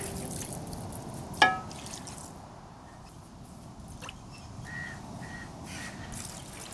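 Water poured from a clay cup onto beef pieces in an aluminium pot: a soft trickle and drip. One sharp clink rings out about a second and a half in.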